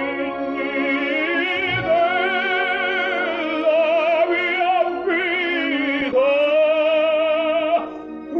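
Operatic tenor singing an aria: long held notes with a wide vibrato, broken twice by short breaths in the second half.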